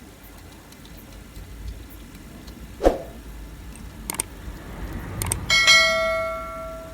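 Metal tools and parts clinking during wheel refitting: a sharp knock, a few light clicks, then a struck metal piece ringing out with a bell-like tone that fades away over about a second.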